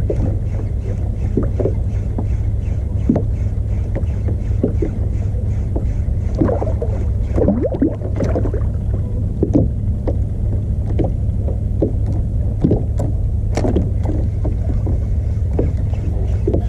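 Fishing kayak under way: water slaps and splashes irregularly against the hull over a steady low rumble.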